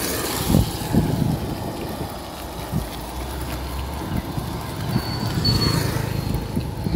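Wind buffeting the microphone of a camera on a bicycle's handlebars, with short knocks from the bike jolting over a rough, broken road. Motorbike engines pass about halfway through.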